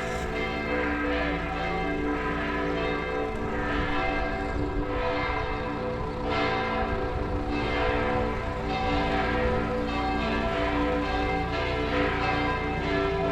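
The bells of Matera Cathedral pealing continuously, with a new strike about every second layered over the ringing of the ones before.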